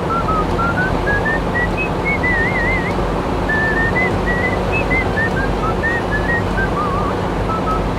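Background music: a whistled tune of short notes stepping up and down, some with a wavering vibrato, over a steady hum and hiss.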